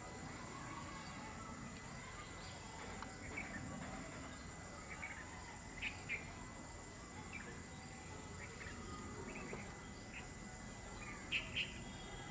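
Quiet rural trackside ambience: short bird chirps come now and then, loudest as two quick pairs about halfway and near the end. Under them are a faint low rumble and a thin steady high insect hum.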